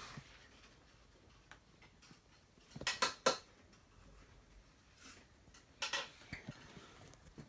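A few light metallic clinks and knocks, two close together about three seconds in and two more near five and six seconds, with no machine running.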